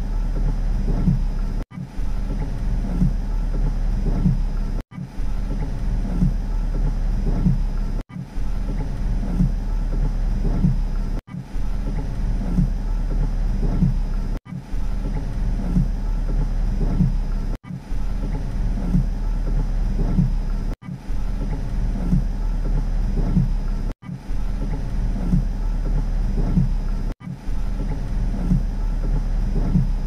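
Rain on a car's roof and windows heard from inside the cabin: a dull, low patter of drops. The sound drops out for a moment about every three seconds, as if a short recording is being repeated.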